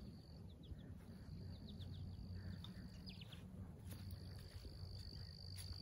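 Faint outdoor wildlife ambience: a high, steady trill that breaks off and starts again, with a few short chirps from birds. A low rumble runs underneath.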